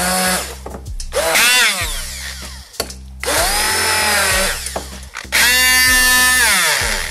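Hand-held immersion blender pulsed on and off about four times while chopping frozen raspberries into yogurt, its motor whining up in pitch as it starts each time and winding down as it stops.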